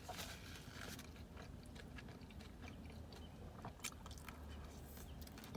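Close-up chewing and biting of food, with irregular small wet clicks and crunches.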